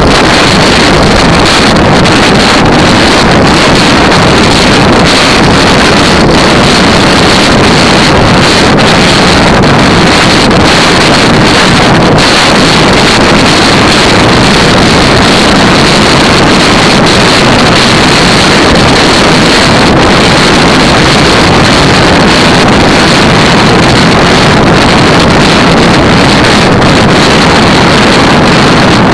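Heavy wind noise on a camera microphone on a racing bicycle moving at about 40 km/h: a loud, steady rushing roar.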